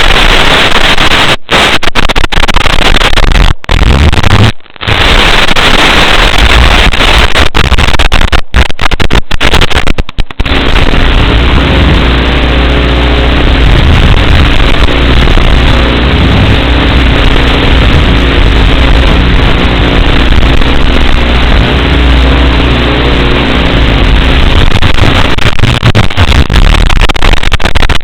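Loud, harsh static from an analog FPV video receiver's empty audio channel. In the first ten seconds it drops out briefly several times; after that it runs steadily with a low buzz under the hiss.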